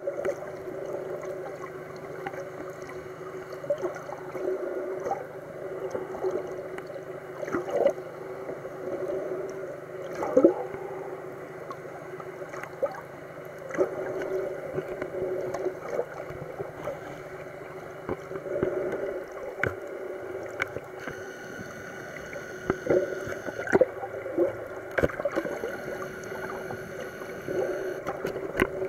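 Underwater sound picked up by a camera below the surface: gurgling and sloshing water over a steady low hum, with many scattered clicks and pops.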